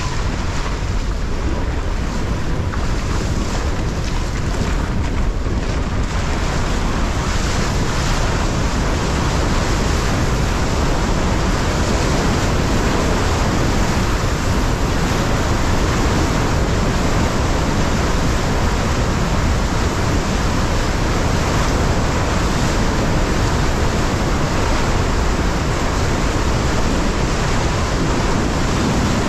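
Steady wind noise buffeting a GoPro's microphone over the rush of waves and water around a windsurf board.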